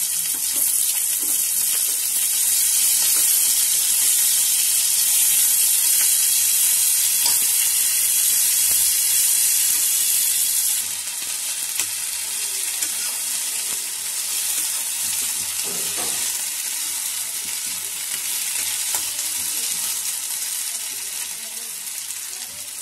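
Chopped potatoes and onions sizzling in hot oil in a kadhai, stirred with a slotted metal spatula. The sizzle is loudest for the first half and drops abruptly about eleven seconds in, with a few light scrapes of the spatula after.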